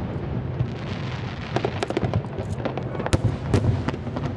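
Fireworks bursting: a continuous crackle over a low rumble, with sharp bangs scattered through, the loudest about three seconds in.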